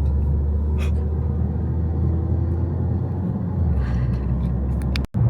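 Low, steady road and engine rumble of a car driving, heard from inside the cabin. The rumble shifts slightly about three and a half seconds in and cuts out for a moment near the end.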